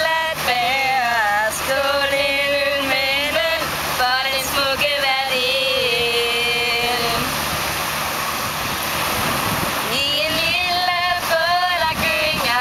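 Women singing a melody together, with long held notes, over a steady rush of surf; the singing breaks off for about two seconds past the middle, leaving only the surf, then resumes near the end.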